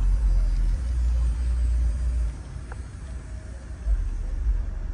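A deep, low rumble that drops off about two seconds in, with a brief surge again near the end.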